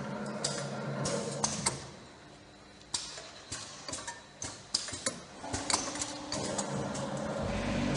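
Powder bottling line running at the can-sealing machine. A motor hums steadily, fades about two seconds in, then returns after about five seconds, with irregular sharp mechanical clicks and clatters of machine parts and plastic bottles on the conveyor throughout.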